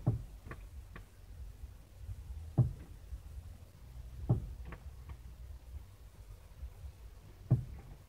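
A male northern cardinal flying at and pecking a car's side mirror, fighting its own reflection: four dull knocks at uneven intervals, heard through the closed car window, with lighter ticks in between.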